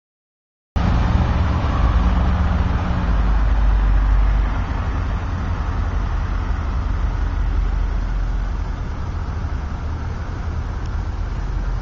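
Street traffic noise with a low, steady engine rumble, picked up by a small action camera's built-in microphone. It starts abruptly under a second in.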